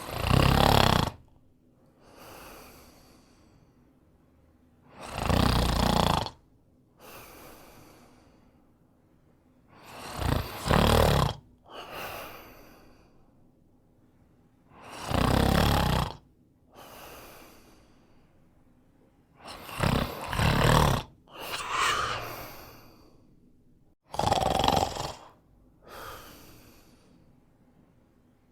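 A man snoring: a loud snore about every five seconds, each followed about a second later by a softer, shorter breath. Two of the snores come in two quick parts.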